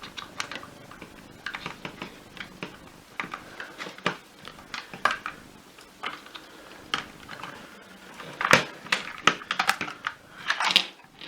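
Irregular clicking and knocking as the parts of a Shark vacuum power nozzle are handled and worked on during disassembly, with a denser, louder run of knocks about eight seconds in.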